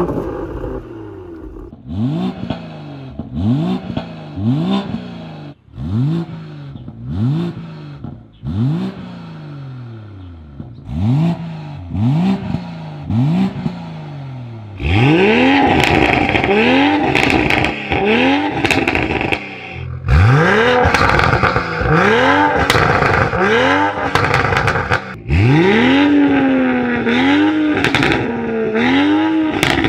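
BMW B58 3.0-litre turbocharged straight-six revved repeatedly through an aftermarket exhaust. Quick throttle blips come about once a second, the pitch rising sharply and falling back. From about halfway the revs are louder and longer, with crackles and pops as the revs drop.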